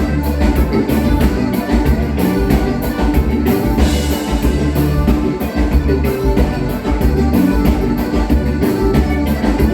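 Gaúcho dance band playing a bugio, with drums and bass carrying a steady beat and a bright crash about four seconds in.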